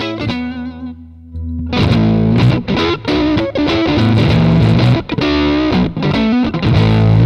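Electric guitar played on its neck single-coil pickup through a Bluewhale Raptor fuzz pedal set for vintage fuzz, with the guitar's volume knob used to clean up the fuzz. A quieter ringing chord comes first, then louder, fuller fuzzed playing from about two seconds in.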